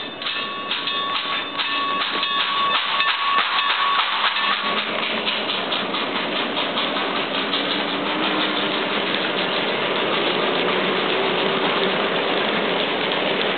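Synthesized steam locomotive sound from a SoundTraxx Tsunami TSU-750 decoder in an N scale Athearn 2-8-0 Consolidation, played through the model's small speaker: rhythmic exhaust chuffs with hiss. The beat turns faster and denser about five seconds in.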